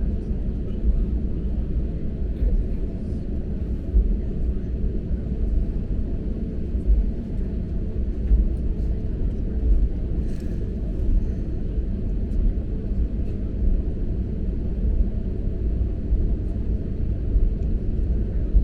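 Steady low rumble inside the cabin of an Airbus A321LR neo, with its engines running and its wheels rolling on the ground, and a few faint knocks and rattles.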